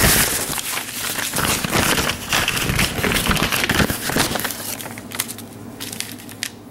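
Paper pamphlet rustling and crinkling as it is held open and handled, loudest for the first four seconds or so, then dying down to a few light clicks.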